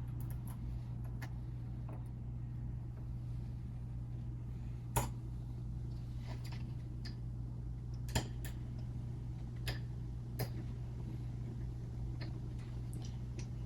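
A few light, scattered metallic clicks as an Allen wrench works a set screw on a door lockset's handle, the clearest about five and eight seconds in, over a steady low hum.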